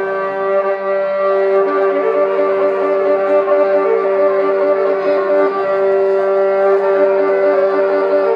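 Amplified violin holding long, steady drone notes. About a second and a half in, a quickly pulsing lower note joins beneath them at roughly four pulses a second.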